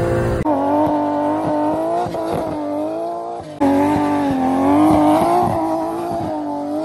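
Toyota Soarer's 1JZ straight-six engine revving hard at high rpm, its pitch rising and falling as the car is launched and driven off. The sound breaks off and jumps abruptly a few times.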